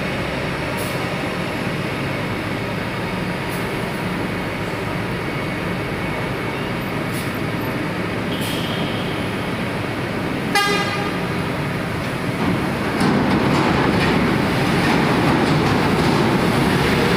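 Heavy diesel truck engines running in a steady drone, with a short horn toot about ten seconds in. The engine noise grows louder from about thirteen seconds in.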